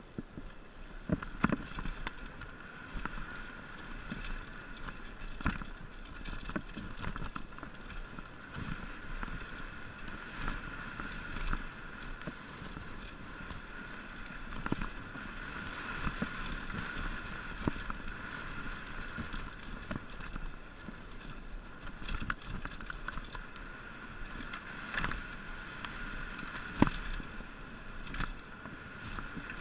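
Mountain bike ridden fast down a dirt forest trail: a steady rush of tyre and air noise, with frequent sharp knocks and rattles as the bike hits bumps.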